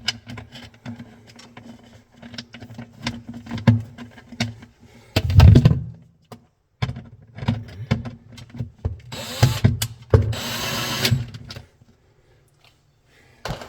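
Clicks and knocks of a screw and panel parts being handled, then a power screwdriver whirs in two short runs about two-thirds of the way through, driving a screw back into the refrigerator's panel.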